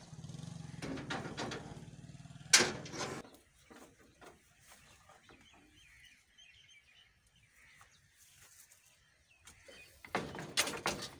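A small truck's engine idling with a steady low throb, with one sharp loud burst of sound over it. It cuts out after about three seconds, leaving faint bird chirps in the quiet, and short louder sounds come back near the end.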